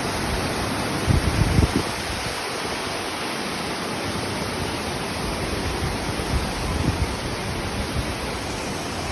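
Steady rushing noise of falling or flowing water, with low thumps of wind on the microphone about a second in and again about two-thirds of the way through.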